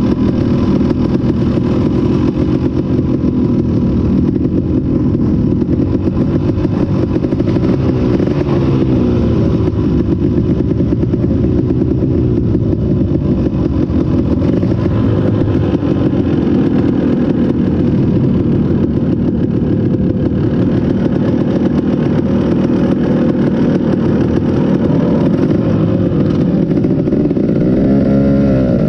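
KTM 250 SX two-stroke motocross engine running hard at race pace, its pitch rising and falling as the throttle opens and shuts through the gears, with a quick rev up and down near the end.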